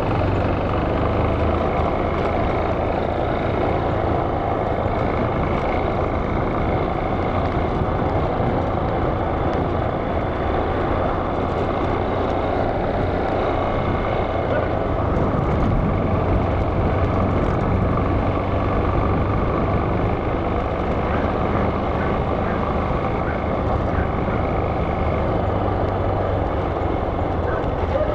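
Motorcycle engine running at riding speed, mixed with steady wind noise rushing over the microphone.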